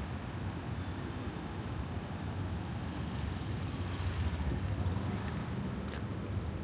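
City street traffic: cars and other vehicles running past in a steady low rumble.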